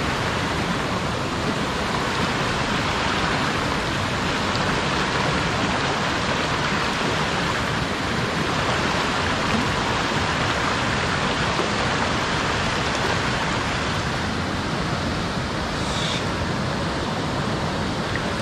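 Rushing stream water: a steady, even rush that runs on without a break.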